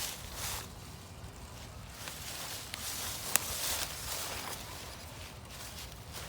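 Rustling and scuffing of steps in leaf litter, with one sharp click a little past halfway.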